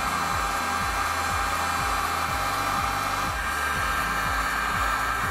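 Hot air gun blowing steadily: a constant rushing hiss with a fan whine. Background music with a steady beat runs underneath.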